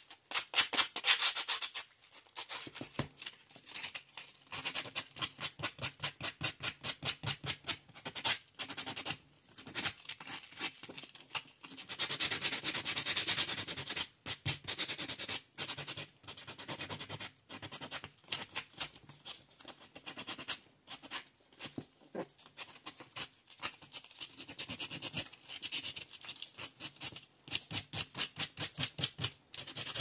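Hand-sanding the back of a cured resin snowflake candle holder: rapid back-and-forth scraping strokes in runs, broken by short pauses.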